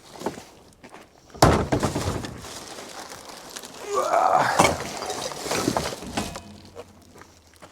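Recycling dropped from bin bags into a street recycling bin: a sharp crash about a second and a half in, then clattering and rattling that stops about six seconds in.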